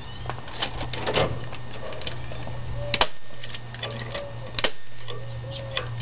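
Hammer tapping a staple into a wooden beam: a string of light taps, with two sharper, louder strikes about three seconds in and just before five seconds. A steady low hum runs underneath.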